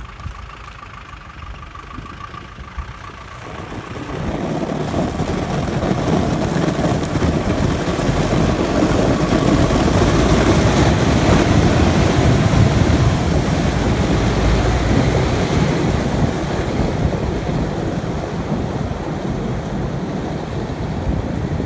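GAZ-66 off-road truck driving through shallow water and broken ice, engine running under load with heavy splashing and slush. The sound swells about four seconds in, is loudest halfway through as the truck passes close by, and eases slightly as it moves away.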